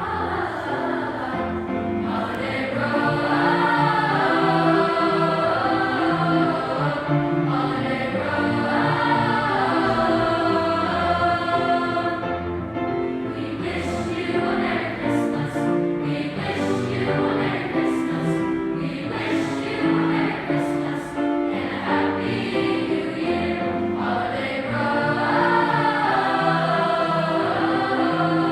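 A school choir singing a medley of Christmas carols in several parts, the voices sustained and moving together.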